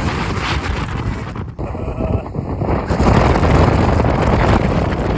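Strong gusty wind buffeting the microphone as a loud rumbling rush, easing briefly about a second and a half in and blowing harder from about three seconds in.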